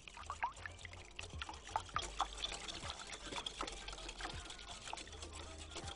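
Wire whisk beating eggs and water in a glass bowl: faint, quick, irregular clicks of the wires against the glass with the liquid being stirred.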